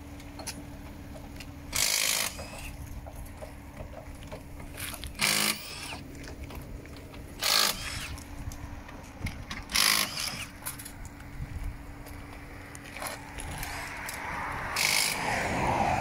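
A cordless impact wrench fires in about five short bursts a few seconds apart, spinning the wheel nuts of a Hyundai i20 Coupe WRC rally car on and off during a roadside wheel change.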